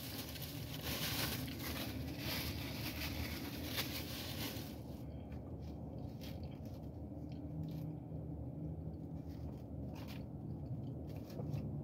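Close-up eating sounds: chewing and a plastic fork scraping in a plastic takeout tray. A dense stretch of scraping fills the first few seconds, then scattered light clicks and taps, over a steady low hum.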